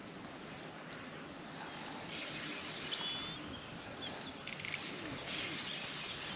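Small birds chirping over steady outdoor background noise, with a brief dry rattle of clicks about four and a half seconds in.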